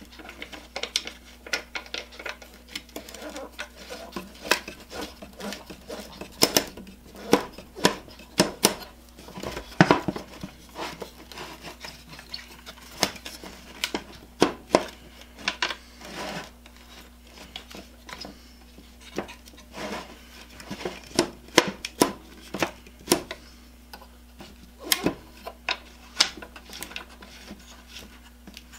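Irregular metallic clicks, clinks and knocks as a Black & Decker router's metal base and motor housing are handled and turned. The knocks come unevenly, several a second at times, with short gaps between.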